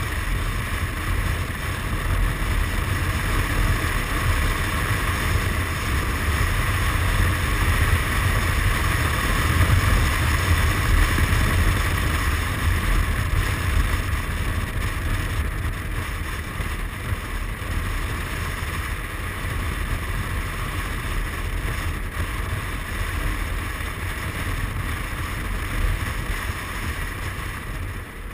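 Suzuki Burgman 400 maxi-scooter on the move: its single-cylinder engine and tyres running under a steady rush of wind on the microphone. The rush is a little louder about eight to twelve seconds in and eases off near the end.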